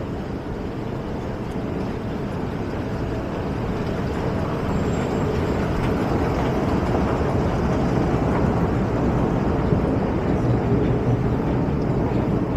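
Steady low rumble of an underground metro station's escalator machinery and ventilation. It grows louder a few seconds in, once on the long down escalator.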